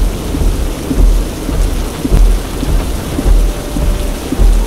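Torrential rain drumming on a car's windshield and roof, heard from inside the cabin, with a deep rumble swelling about once a second.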